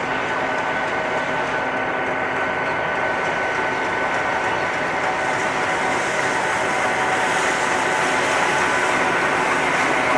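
ALCO diesel locomotive engine running steadily, with a constant high whine over its rumble, growing slightly louder in the second half.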